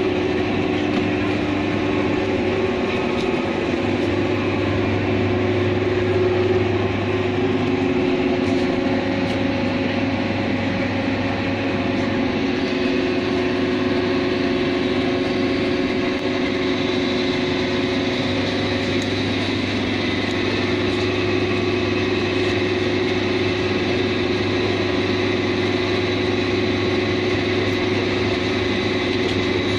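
Train running with a steady mechanical drone: a low hum with several steady tones, unchanging in level, with faint light ticks now and then.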